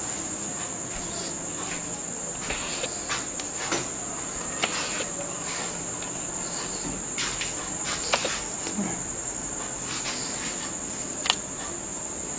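A steady high-pitched trill or whine, with scattered light clicks and knocks over it, the sharpest a little before the end.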